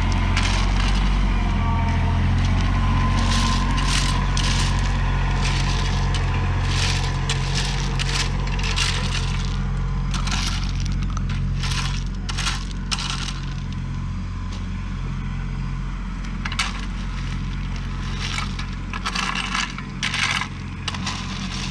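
Tractor engine running steadily while rocks and dirt clatter and scrape in many sharp bursts, as in earthmoving work. The engine eases off a little about halfway through.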